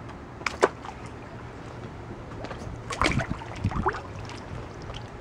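Pool water splashing and sloshing as a large dog wades through it: a few short splashes about half a second in and again around three to four seconds in, over a steady low hum.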